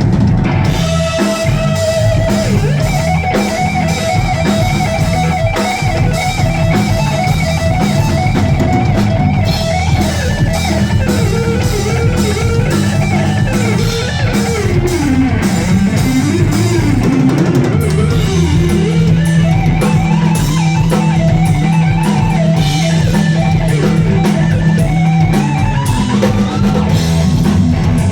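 Live instrumental rock: electric guitar playing lead lines over a full drum kit and bass. The guitar notes slide and bend up and down in pitch through the middle.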